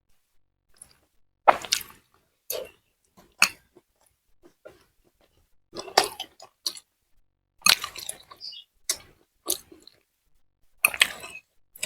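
Close-miked eating: irregular wet chewing and biting sounds from a mouthful of noodles, meatballs and raw chillies, coming in short sharp bursts with quiet gaps between.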